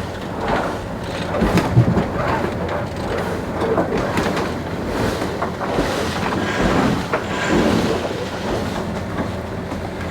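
Wind and water noise aboard a sailing yacht under way: an uneven rushing with a few light knocks.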